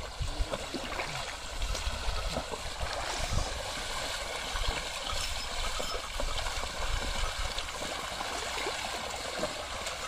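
Steady sloshing and splashing of muddy water as a pair of bullocks wade through a flooded paddy field, dragging a wooden leveling board through the mud, with many small irregular splashes.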